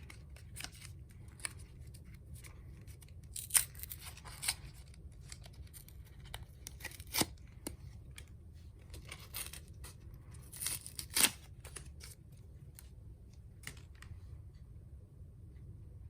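Small sharp clicks and light scraping from handling a Zippo lighter insert and a new wick, with a few louder snaps among them; the clicking thins out near the end.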